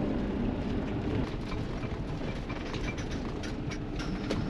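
Elddis Evolution 105 motorhome driving slowly, its engine running steadily under irregular rattles and knocks from the ride.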